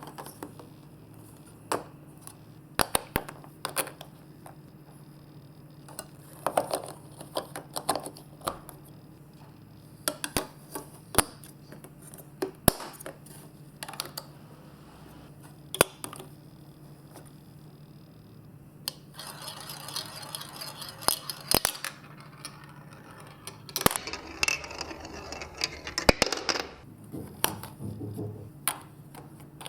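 Marbles clicking and knocking as they drop and roll through a plastic building-block and magnet marble run course, in irregular taps, with two longer rushing stretches about two-thirds of the way in. A faint steady hum lies underneath.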